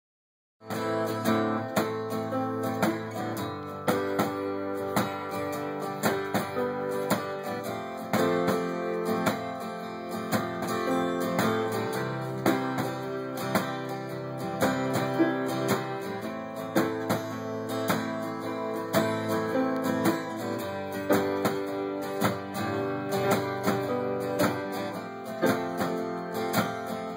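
Live instrumental intro: an acoustic guitar strummed in a steady rhythm, with a Casio electric keyboard holding chords underneath. The music starts about half a second in.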